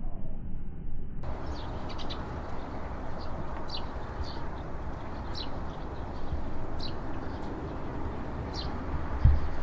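Eurasian tree sparrows chirping: short, high, falling single chirps about once a second over a steady low background hum. Two low thumps come near the end.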